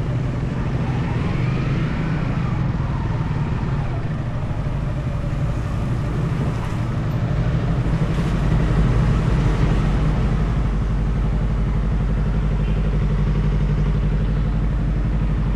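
Yamaha XSR 155's stock 155 cc single-cylinder engine and exhaust running steadily while riding, with road and wind noise. It gets a little louder about halfway through.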